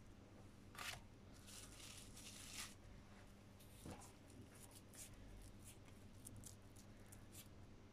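Faint, intermittent crinkling and rustling of clear plastic cling film as it is handled, over quiet room tone.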